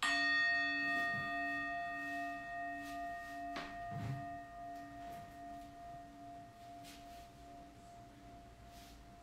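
A single singing-bowl chime struck once, ringing with several bright overtones and a slowly wobbling low tone, fading gradually over about nine seconds.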